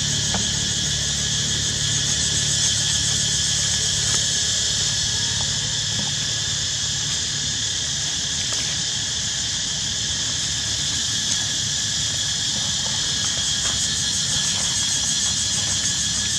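Steady high-pitched insect chorus, a continuous shrill buzz with an even thin tone below it, over a low hum.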